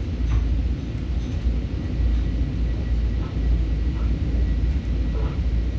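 Steady low rumble of a moving Long Island Rail Road electric train, heard from inside the passenger car as its wheels run over the track.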